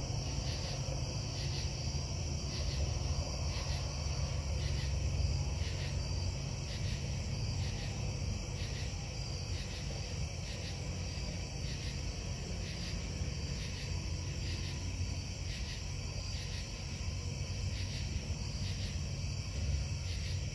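Steady low industrial rumble from a metal-casting plant (foundry), carried across the neighbourhood at night. Crickets chirp in a regular rhythm over it.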